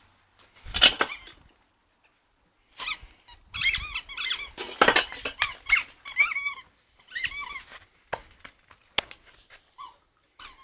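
A Border Collie's squeaky toy being bitten over and over, giving bursts of short, high squeaks. A loud cluster comes about a second in, then a long fast run from about three to seven seconds, and a few scattered squeaks near the end.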